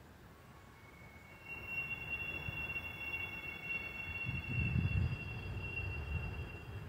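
A steady high-pitched squeal, several tones sounding together, starting about a second and a half in over a low rumble that swells briefly near the end.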